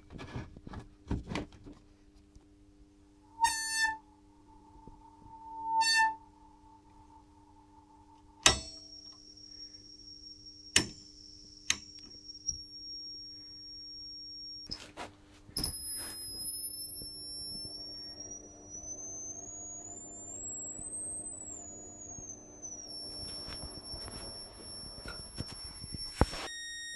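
Sine-wave tone from a Rohde & Schwarz UBM tunable indicating amplifier used as an RC sine generator, played through a hi-fi system. It starts as a mid-pitched tone, then after a sharp click becomes a high whistle that climbs stepwise in pitch and comes back down as the frequency dial is turned. Underneath is a low steady hum, with scattered clicks from the cable and switches.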